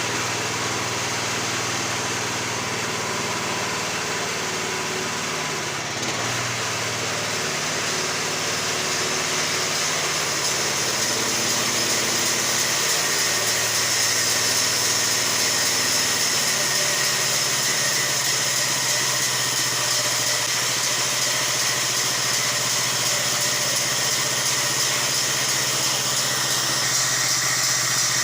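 Band sawmill's engine running steadily under test, growing slightly louder about ten to fourteen seconds in and then holding.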